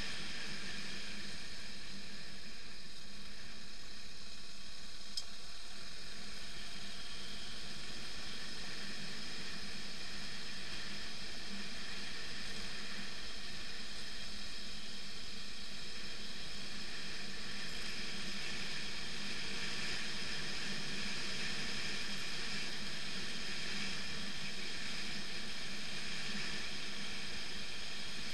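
BMW F 650 GS motorcycle riding steadily along a gravel road: the engine runs at an even speed under a constant hiss of wind and tyre noise.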